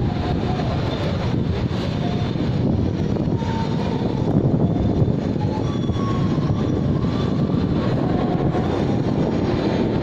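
Steady wind rush on the microphone of a moving bicycle, mixed with road noise, with no breaks.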